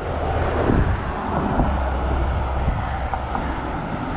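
Wind buffeting the microphone of a camera on a moving road bicycle: a steady rushing with a deep rumble, strongest in the first couple of seconds.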